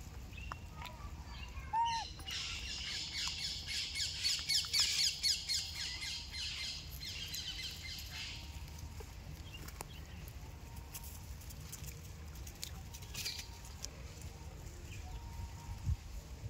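Birds chattering and squawking together for about six seconds, a dense flurry of quick chirps that then dies away, leaving faint background with a few clicks. Just before the chatter, two short squeaky rising-and-falling calls.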